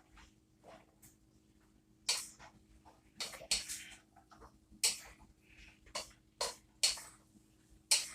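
A cooking utensil scraping and knocking against a pan as stir-fry vegetables are stirred: about eight short, separate strokes, irregularly spaced.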